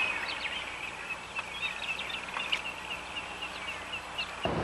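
Outdoor birdsong: several birds chirping and twittering in many short high notes over a continuous high trill.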